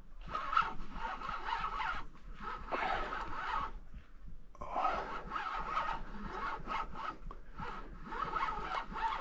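Fishing reel whirring with a rasping, steady-pitched tone as a hooked carp is played. It comes in three stretches separated by short pauses.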